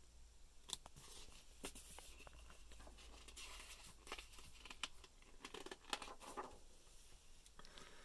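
Faint rustling and small clicks of a hardcover picture book's paper pages being handled and turned.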